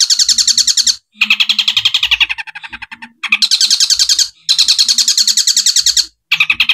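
Caged long-tailed shrike (cendet) singing long bursts of rapid, evenly repeated chattering notes, about a dozen a second, in the fast 'tembakan' style that mimics sparrow calls. The bursts break off briefly about a second in, near three seconds, around four and a half seconds and again near six seconds.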